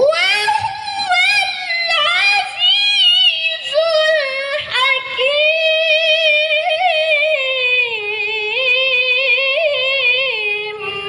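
A woman's high voice in melodic Quran recitation (tilawah), holding one long ornamented phrase with quick trills and wavering pitch that slowly falls toward the end.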